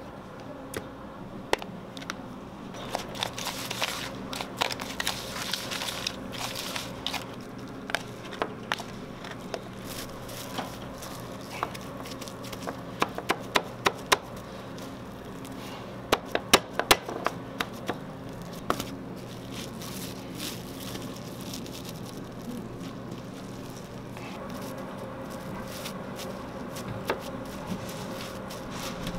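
Cling film crinkling as hands press and shape a plastic-wrapped sushi roll on a cutting board, with many scattered sharp taps and clicks, some in quick runs around the middle. A steady low hum runs underneath.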